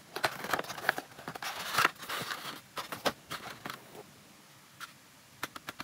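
Cardboard product box being opened by hand: the lid flap and inner tray scraping and rustling for about four seconds, then a few quick light clicks near the end.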